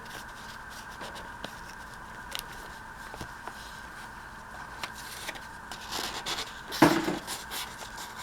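Paper rustling and scraping as paper pieces are handled and slid into the pockets and pages of a handmade paper journal, with scattered light taps and a louder rustle and knock about seven seconds in. A faint steady hum runs underneath.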